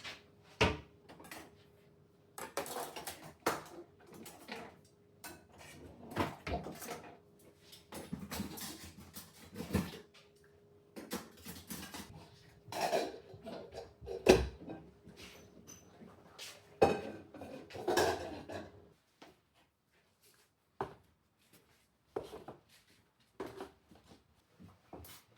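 Dishes, pots and other kitchenware clattering and knocking irregularly as they are handled and moved in and out of cabinets and drawers, with a faint steady hum under the first two-thirds. The handling thins out to a few light knocks over the last several seconds.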